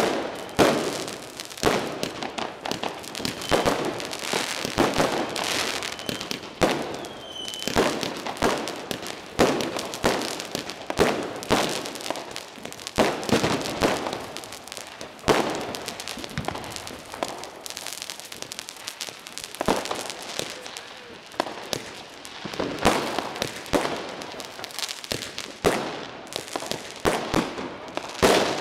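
Fireworks going off nonstop: a dense, irregular run of bangs and crackling from aerial shells and firecrackers, several a second, with a short high whistle about seven and a half seconds in.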